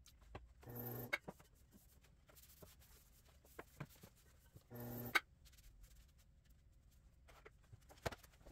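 Faint clicks and knocks of pottery tools, sponge and buckets being handled at a pottery wheel during clean-up. Twice, about a second in and about five seconds in, a short steady hum sounds and ends in a sharp click.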